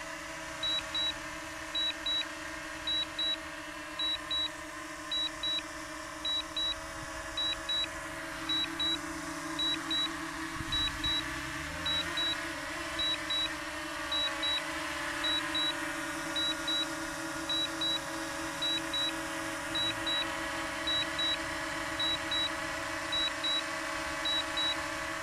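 DJI Mini 2 drone landing, its propellers giving a steady hum, while the remote controller sounds a high double beep about once a second as the auto-landing alert.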